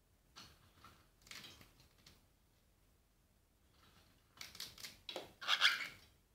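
Cockatiel crunching pieces of rusk (fette biscottate) with its beak in a steel feed bowl, in two spells of crisp crackling: one from about half a second to two seconds in, and a louder one from about four and a half to six seconds in.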